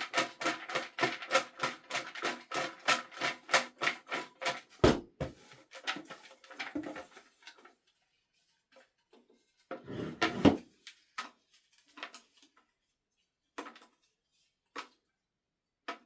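Raffle ticket drum being turned: a quick, even run of clicks and rattles, about five a second, for some seven seconds, with a heavy thump partway through. Then come scattered knocks and rustles as the drum stops and a ticket is drawn.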